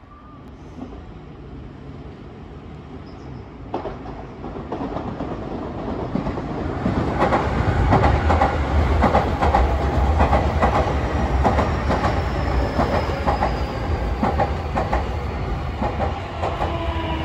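Nankai Railway commuter train running past on the tracks below, its wheels clacking over the rail joints. The rumble grows from about four seconds in to its loudest around the middle, then slowly eases off.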